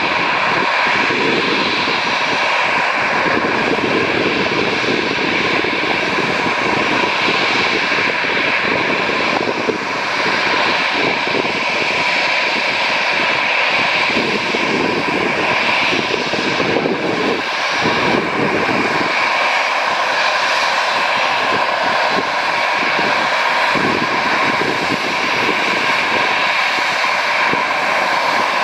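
Airbus A321neo's Pratt & Whitney geared turbofan engines running with a steady high whine, over a low rumble.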